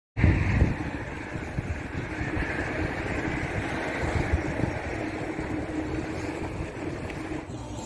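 Wind buffeting the microphone of a camera on the move, a continuous low rumble with gusty thumps, over a steady road hiss and faint hum.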